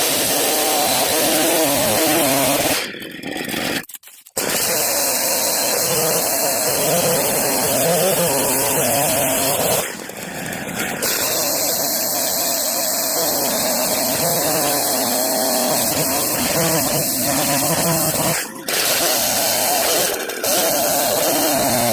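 Chainsaw running at high revs, cutting a felled fir tree into firewood rounds. The engine eases off briefly a few times, about three seconds in, around ten seconds and again near eighteen seconds, then picks back up.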